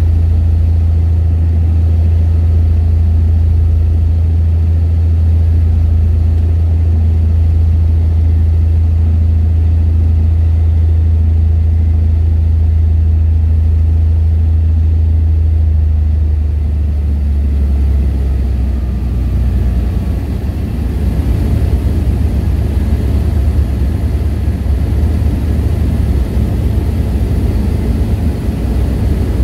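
Stinson light aircraft's piston engine and propeller heard inside the cockpit: a loud steady drone that drops lower and turns rougher a little past halfway, as power comes back for the descent to land.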